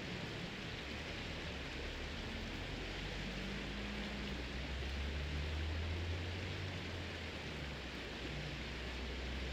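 Steady outdoor hiss with a low rumble underneath that swells about halfway through.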